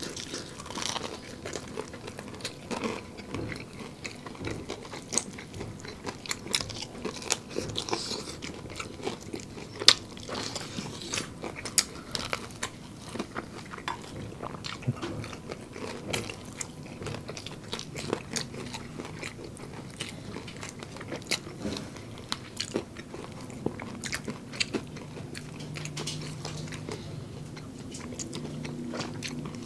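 Close-up crunchy bites and chewing of crispy breaded fried chicken, with sharp crunches coming irregularly all through.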